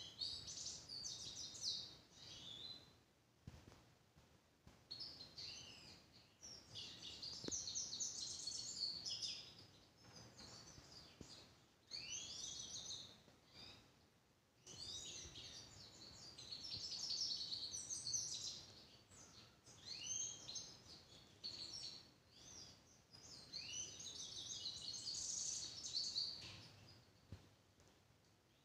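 Grey-headed goldfinch singing: a run of song bouts, each a few seconds of rapid, high notes, separated by short pauses.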